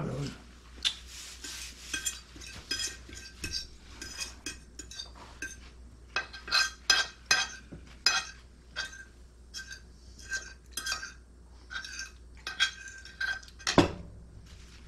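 Cutlery clinking and scraping against plates during a meal, in quick irregular taps, with one louder knock near the end.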